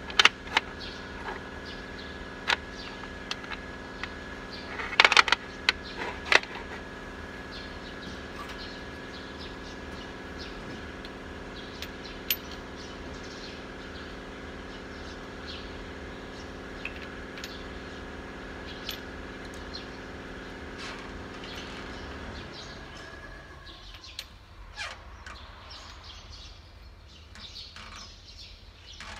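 Sharp metallic clicks and clanks of hand tools and parts on an exposed diesel engine's cylinder head, loudest in a cluster about five to six seconds in. Under them runs a steady machine hum that stops about three-quarters of the way through.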